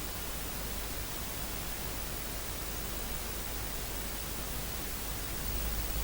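Steady, even hiss of background noise with no distinct event.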